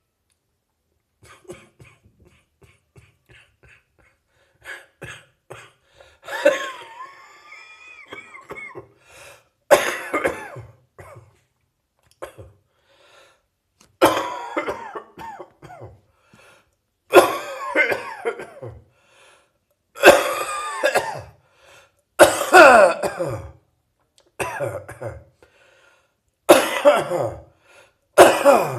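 A person coughing in repeated fits: a few faint short coughs first, then a loud cough every two to four seconds from about six seconds in, some with a strained, pitched voice in them. It is a residual morning cough.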